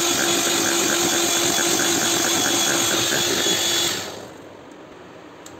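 Electric hand mixer running steadily, its beaters whirring through thick chocolate cookie batter in a bowl; the motor stops about four seconds in.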